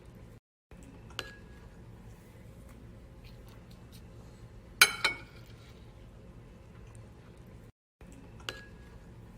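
Kitchenware clinking: a light clink about a second in, two sharp clinks close together around the middle, and another near the end, over low room noise.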